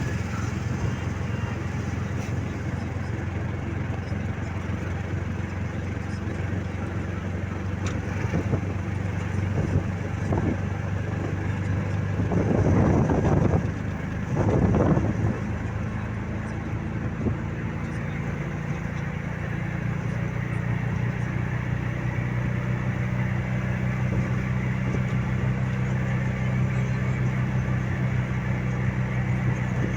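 Road vehicle travelling: a steady engine drone with road noise, its pitch shifting a little about halfway through, and two louder rushing swells in the middle.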